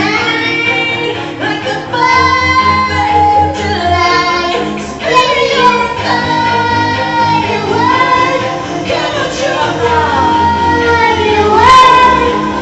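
A girl singing a pop song over a backing track, holding several long notes.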